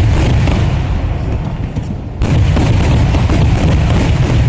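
Traditional Kerala vedikkettu fireworks going off in a rapid, dense volley of loud bangs over a continuous low rumble. A fresh salvo starts about two seconds in.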